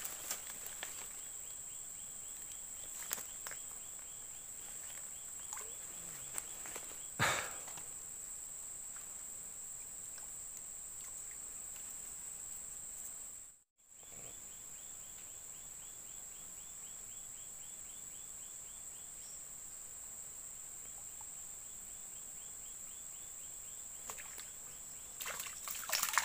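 Insects calling in a steady high whine, with a fast ticking chirp running over it for long stretches. A brief rustle about seven seconds in, the sound cuts out for a moment about halfway, and there is rustling near the end.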